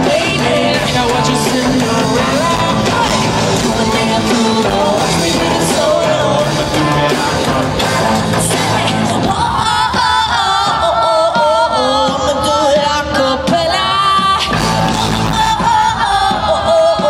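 Live pop-rock concert music with a woman singing lead into a microphone over a full band, echoing in a large hall. A little past halfway the bass and band drop away and the voice carries on nearly alone for a few seconds, then the band comes back in near the end.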